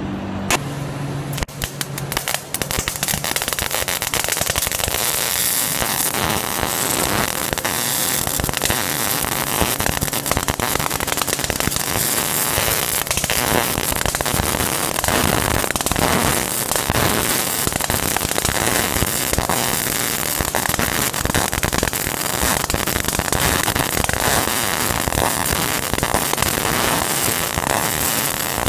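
MIG welding arc under argon/CO2 shielding gas, crackling and spattering steadily as the wire feeds. It starts about a second and a half in.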